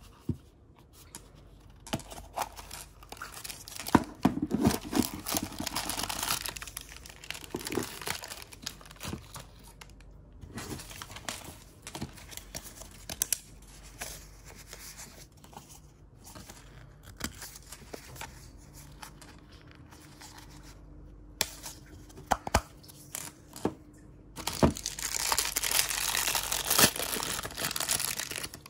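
Crinkly pink plastic wrapping being torn open and crumpled by hand during a toy-ball unboxing. The rustling comes in bursts, loudest about four seconds in and again near the end, with sharp clicks of hard plastic pieces between.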